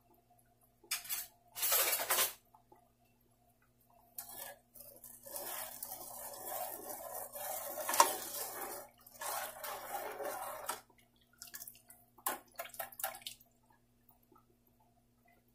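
A spoon stirring sugar syrup with cardamom pods in a non-stick pan: the liquid swishes while the spoon scrapes and knocks against the pan. A sharp clink comes about eight seconds in, and a few light taps near the end.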